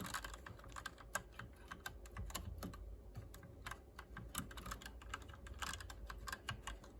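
Hator Starfall mechanical keyboard with Outemu Red linear switches being typed on lightly: a quiet, irregular run of keystroke clicks.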